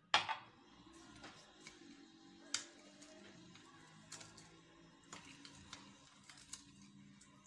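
Metal spoon clinking against a glass bowl while stirring sugar into lemon juice: one sharp clink with a short ring right at the start, then scattered lighter clinks.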